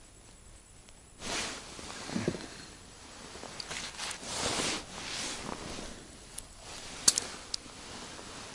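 Rustling and crunching of an angler moving on the snow beside an ice hole, in several short swells starting about a second in, with a few sharp clicks near the end.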